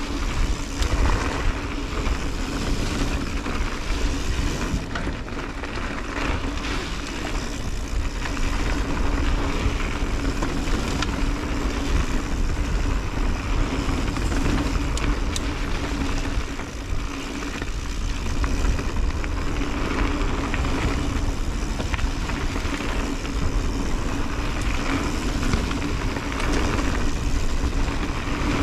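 2021 Santa Cruz 5010 mountain bike riding a dirt trail: steady wind on the microphone and tyre rumble, with a steady hum and frequent knocks and rattles from the bike over bumps.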